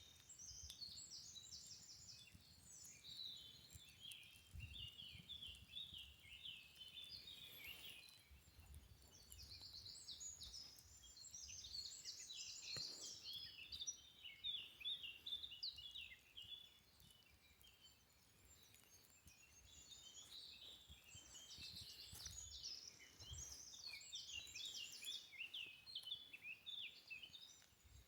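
Faint chorus of many overlapping high, quick chirps and trills from forest wildlife, rising and falling in density, with soft low rumbles underneath.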